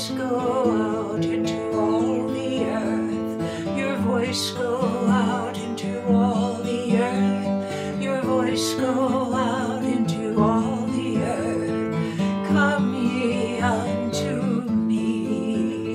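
A woman singing with vibrato while playing an acoustic guitar. Near the end her voice stops and the guitar plays on alone.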